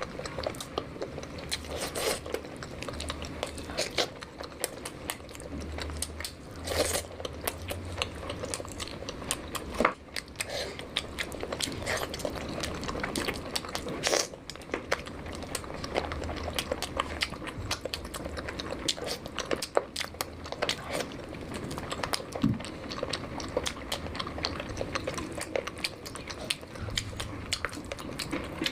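Close-miked eating: wet chewing with frequent small crunches, smacks and clicks.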